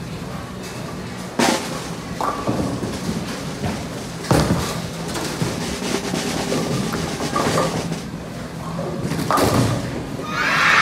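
Bowling alley lanes: sharp knocks and thuds of balls and pins, three of them loud, over a steady low hum, with a louder, noisier clatter starting near the end.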